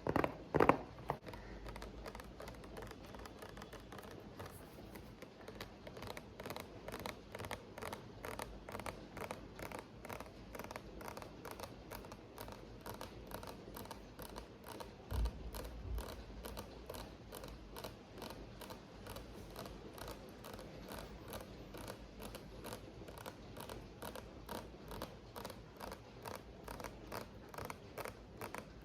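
Quick, light ASMR tapping, many taps a second, louder in the first second and then softer and steady, with one low thump about halfway through.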